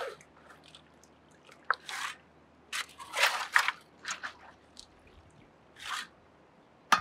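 Steel shovel crunching and scraping into wet creek gravel and pebbles in a series of short, uneven strokes, with a sharp clack near the end.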